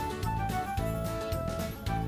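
Background music: an upbeat instrumental track with a steady beat and a plucked-sounding melody.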